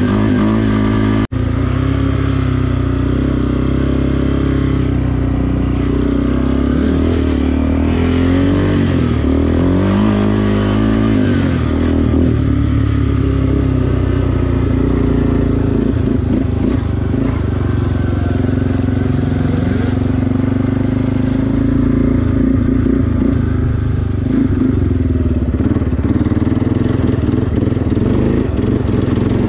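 Yamaha 350 sport quad's engine running under way on a dirt trail, revs rising and falling with the throttle. The sound breaks off for an instant just over a second in.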